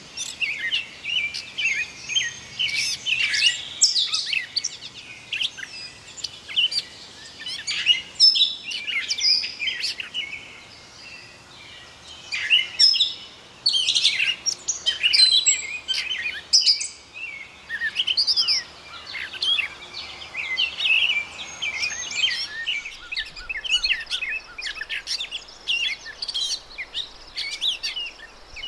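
Gray catbird singing: a long, rambling run of short, varied notes and slurs, broken by brief pauses about ten and seventeen seconds in.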